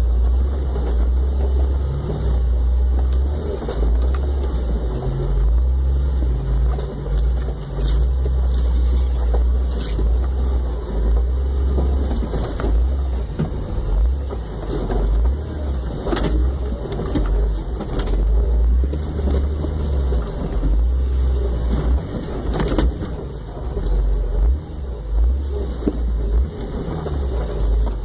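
Off-road vehicle's engine running low and steady as it crawls over a rocky trail, with scattered sharp knocks and rattles from the vehicle jolting over the rocks.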